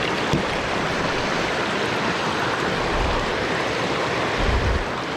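Steady rush of flowing creek water, with two brief low rumbles about three seconds in and near the end.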